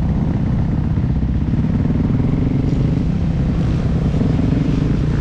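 Motocross bike engine heard up close from on board, running steadily at low revs with a low, even note and no sharp revving.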